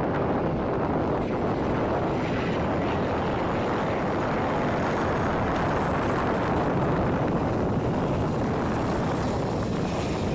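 An A-10 Thunderbolt II's twin TF34 turbofan engines at takeoff power as it rolls down the runway: a steady jet noise with a faint high whine that grows stronger near the end.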